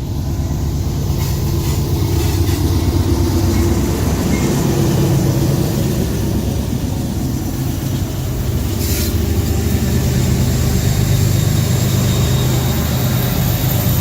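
Freight train diesel locomotives running past, with a steady low engine drone and the rolling rumble of the train. There is a brief sharper noise about two-thirds of the way in, and a faint high thin tone near the end.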